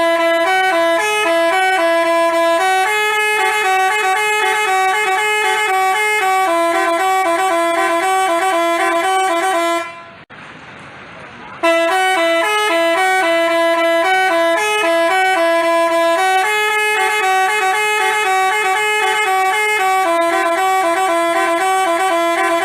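Telolet basuri bus horn playing a multi-note melody of stepping tones for about ten seconds. It breaks off for a moment about ten seconds in, then plays the same melody again.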